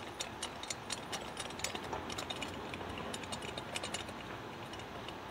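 Metal nut being spun by hand down a threaded J-bolt on a small-engine disc muffler's end cap, making quick, irregular light metal clicks, several a second.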